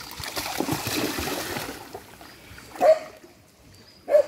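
Border Collie wading through a shallow river, water splashing around its legs for the first couple of seconds. Two short, sharp sounds about a second apart follow near the end, louder than the splashing.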